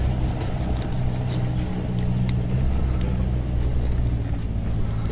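A steady low mechanical hum runs throughout, with faint scrapes and ticks of a fillet knife slicing along a large fish.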